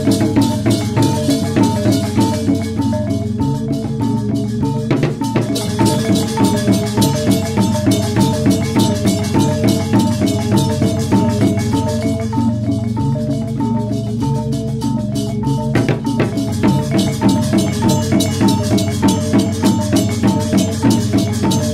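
Balinese gamelan music: metallophones play fast repeating figures over drums at a steady quick pulse.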